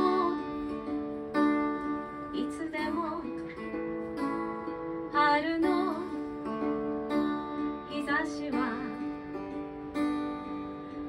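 A woman singing to her own strummed acoustic guitar. Short sung lines come in between ringing guitar chords.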